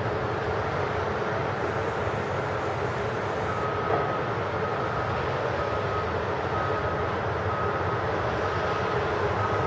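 Steady hum of road traffic on a city street below. From about a third of the way in, a high electronic beep repeats about one and a half times a second.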